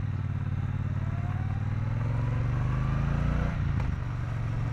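Triumph Bonneville T120's 1200 cc parallel-twin engine and exhaust under acceleration, rising steadily in pitch for about three and a half seconds. Then it drops briefly with a click as the rider shifts up a gear, and it pulls on steadily.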